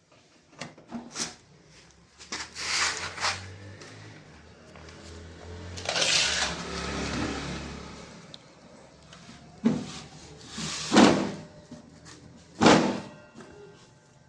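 Metal clanks, scraping and knocks from working a table saw's blade-tilt (bevel) mechanism by hand, with several sharp knocks in the second half. The mechanism is stiff, and the owner says it is a little jammed.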